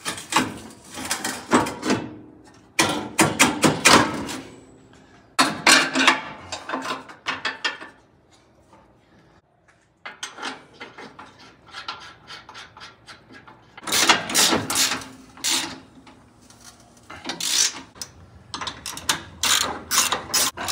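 Hand ratchet wrench clicking in repeated quick bursts with short pauses, as the bolts holding a truck's transmission crossmember are run down.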